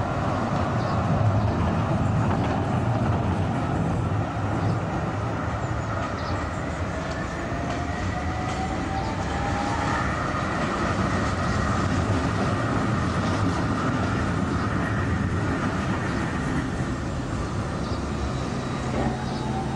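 Electric street trams passing, with a steady rumble of wheels on the rails. A thin high whine rises in pitch about seven seconds in and carries on through the middle.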